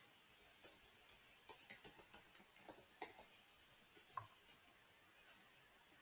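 Faint computer keyboard typing: irregular single keystroke clicks, a quick run in the first half and a few more near the end.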